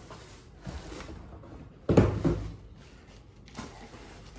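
Cardboard packaging being handled, with a single loud thump about two seconds in and a few quieter knocks around it.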